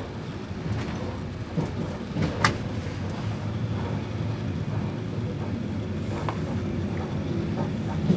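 Steady low rumble of a passenger train carriage heard from inside, with scattered clicks and one sharper knock about two and a half seconds in.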